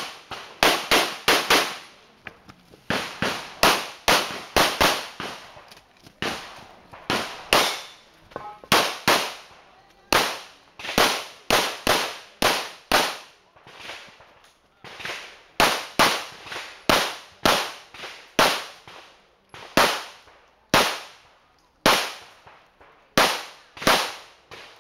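A Glock 17 9mm pistol fired rapidly: quick pairs and strings of shots, with short pauses between strings.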